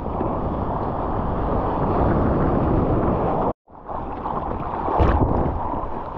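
Water churning and sloshing around a surfboard as it is paddled through whitewater, with wind buffeting an action camera's microphone held close to the water. The sound cuts out for an instant a little past halfway, and there is a brief splash about five seconds in.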